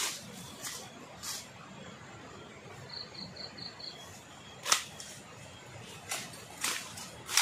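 Weeds and brush being slashed with a hand-held blade: a handful of uneven, sharp swishing strokes, the loudest a little past the middle. A short run of five quick high chirps comes about three seconds in.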